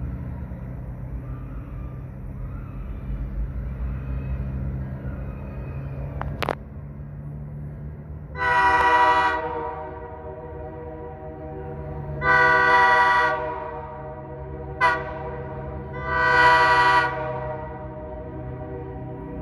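Locomotive air horn sounding the grade-crossing signal, long, long, short, long, as the train approaches, over a steady low rumble from the train.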